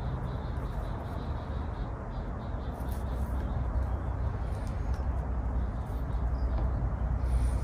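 Steady background hum and hiss, with faint light ticks and rustles of bonsai wire being wound by hand around a thin branch.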